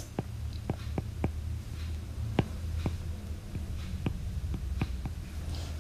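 Irregular soft clicks and taps of a stylus on a tablet screen during handwriting, over a faint steady low hum.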